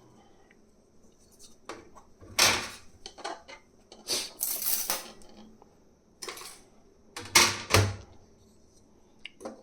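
3D-printed plastic parts being handled and set down on a hard surface: about eight irregular knocks and clatters, with a brief scraping rustle about four to five seconds in.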